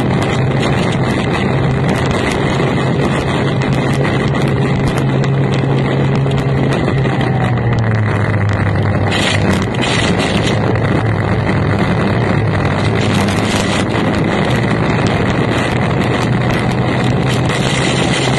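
Formula 1 tunnel boat's racing outboard engine running flat out at race speed, with a steady drone. The note dips briefly a little past the middle and climbs back. Rushing wind and water spray hiss over it, with a burst of spray hitting the boat-mounted camera about halfway through.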